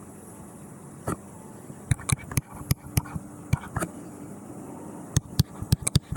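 A stylus tapping and clicking on a tablet surface as figures are handwritten: irregular sharp clicks, a few about one to two seconds in, a cluster through the middle and several in quick succession near the end, over a low steady background hiss.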